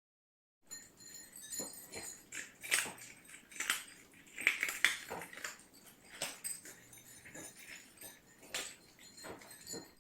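Yard cats eating: irregular crunching and chewing of food.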